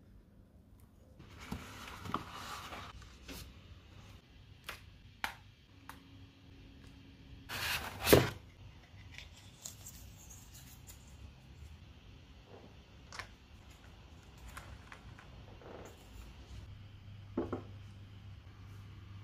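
Plastic parts of a Zhiyun Smooth Q4 phone gimbal and its mini tripod being handled: a rustle as it is lifted out, then a scattering of sharp plastic clicks and snaps as the arms are unlocked and the tripod legs are unfolded and fitted, the loudest snap about eight seconds in.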